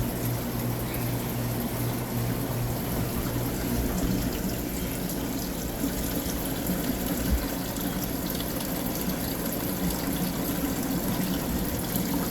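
Saltwater aquarium pumps and filters running: a steady wash of trickling water over a low hum.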